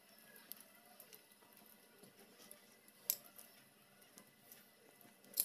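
Faint soft squishing and small ticks of fingers pressing ground masala paste into boiled bitter gourds, with a couple of sharper clicks, one about three seconds in and one near the end.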